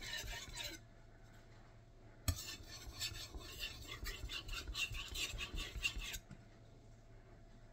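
A Nitro-V steel gyuto blade is stroked back and forth on a Shapton Kuromaku 5000-grit whetstone, a rasping scrape with each stroke as the edge is polished at the fine-grit stage. A short run of strokes gives way to a pause, then a light knock about two seconds in, then a longer run of strokes lasting about four seconds.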